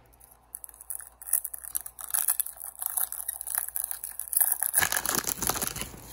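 Foil wrapper of a hockey card pack crinkling and tearing as the pack is opened, with the cards inside shuffled by hand. The crackle is busiest near the end.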